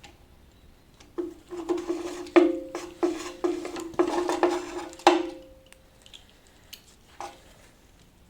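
Metal-on-metal clanking and tapping on engine parts, a quick irregular run of strikes for about four seconds with a ringing tone under them, then a few lighter clicks.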